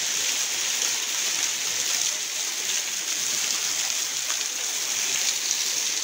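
Small waterfall spilling in drops and thin streams off an overhanging rock ledge, splashing steadily onto stones and a shallow pool.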